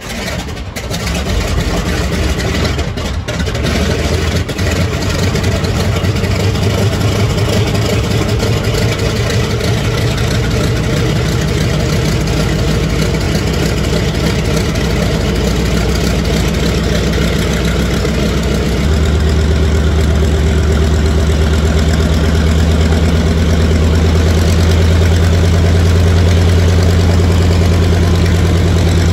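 Curtiss SB2C Helldiver's Wright R-2600 twin-row radial engine catching on a cold start and running up to a rough, uneven idle, with a couple of sharp cracks in the first few seconds. About 19 s in, the note changes to a louder, steadier low drone.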